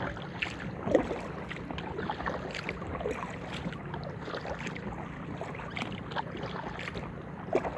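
Kayak paddle dipping and splashing in the water as an inflatable kayak is paddled, with irregular small splashes and one louder splash about a second in.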